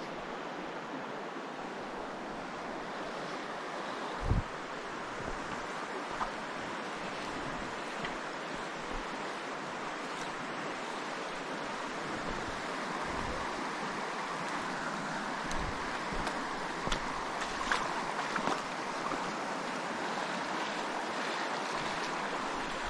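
Steady rush of a river's current running over shallow gravel riffles. There is one low thump about four seconds in and a few light clicks in the second half.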